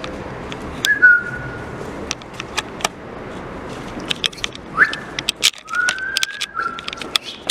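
A person whistling: a short note about a second in, then a quick rising whistle near five seconds and a longer held note that steps down in pitch near the end. Scattered sharp clicks and knocks sound throughout.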